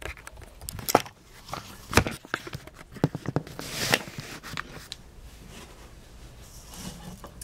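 Handling noise close to the camera: several sharp knocks and rustles in the first four seconds, then quieter shuffling.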